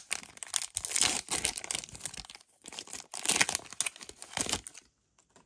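Crinkling and tearing of a Pokémon booster pack's plastic wrapper as it is ripped open and handled, an irregular crackle that stops a little before the end.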